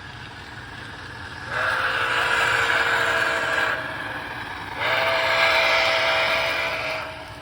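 Steam whistle from the sound system of an MTH model Nickel Plate Road 765 steam locomotive, blown twice, each blast about two seconds long with a short rising start, over the steady low running rumble of the train.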